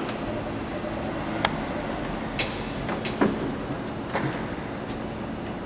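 A pneumatic ram pressing a loading plate against a reinforced van bulkhead as the load rises. Steady background noise carries several sharp clicks and a couple of short creaks falling in pitch.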